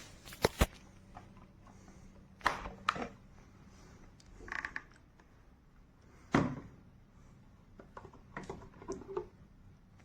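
Handling noise: a series of separate sharp clicks and knocks, with a short rattle about four and a half seconds in, the loudest knock about six seconds in, and a cluster of small clicks near the end.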